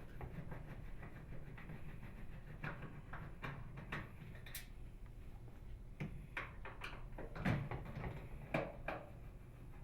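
Phillips screwdriver unthreading screws from a microwave oven's upper door hinge: faint scattered clicks and small taps of metal on metal, with a couple of louder knocks about three-quarters of the way through.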